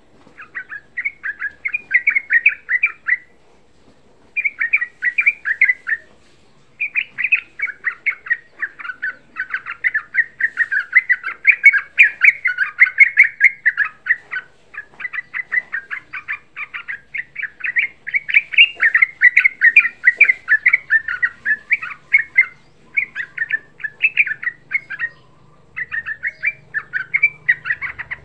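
Yellow-vented bulbul (trucukan) singing a fast, bubbling chatter of short notes in long unbroken runs, with a few brief pauses.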